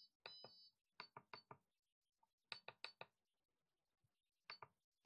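Quiet clicks of the keypad buttons on a RigExpert AA-1500 Zoom antenna analyzer being pressed, in small groups of two to four taps, with a short high beep at the start.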